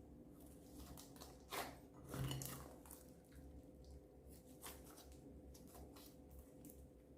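Slime being mixed and squeezed by hand, giving soft sticky clicks and pops with two louder squelches about one and a half and two seconds in.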